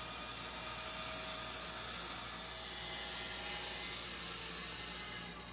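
Bandsaw running and ripping a hardwood board set on edge against the fence, a steady hissing whir that eases off near the end.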